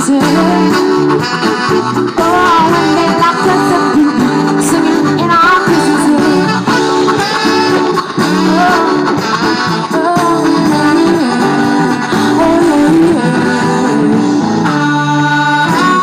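Live soul-rock band playing an instrumental passage with no sung words: electric guitar, bass and drums with a trumpet and saxophone horn section.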